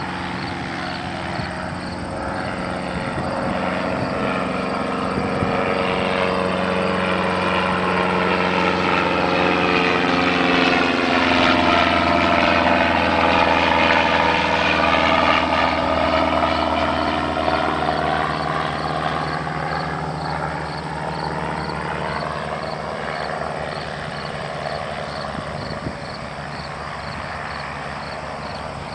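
Small propeller aircraft flying low overhead: the engine and propeller grow louder to a peak about halfway through, drop in pitch as it passes, then fade away.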